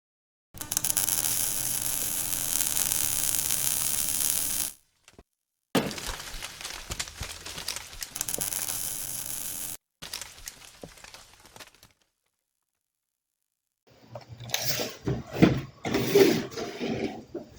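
Workshop sounds in short cut clips: a steady rushing noise runs about four seconds and stops dead, a second similar stretch follows, and near the end there is a run of sharp knocks and clinks.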